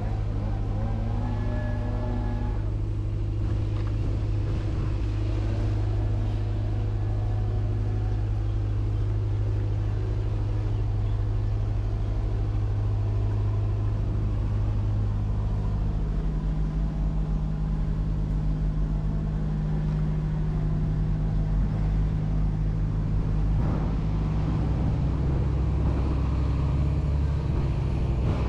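Road traffic, dominated by a steady low engine hum that shifts up in pitch about halfway through.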